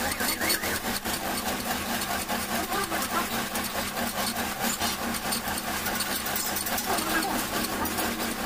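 Metal lathe running with a steady hum and a constant rapid ticking while its tool turns a steel e-rickshaw shaft.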